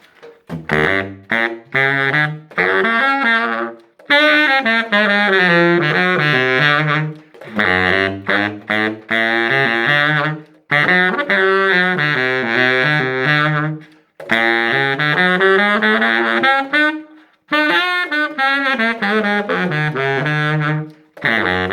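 Baritone saxophone played through a 3D-printed mouthpiece: a melody of quick notes in phrases of two to four seconds, with short gaps between phrases.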